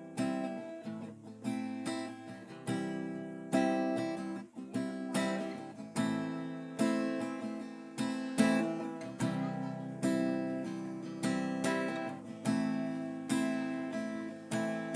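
Acoustic guitar strummed in a steady rhythm, one chord stroke about every three quarters of a second, each ringing out and fading before the next. It is an instrumental lead-in before singing begins.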